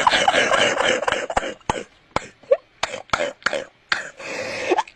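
Harsh coughing and throat-clearing: a long rasping stretch in the first second and a half, then a string of short, sharp coughs.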